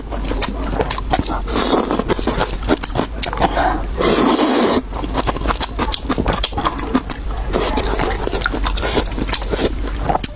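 Close-miked eating of noodles: wet chewing and mouth smacks in quick irregular clicks, with loud slurps, the longest about four seconds in.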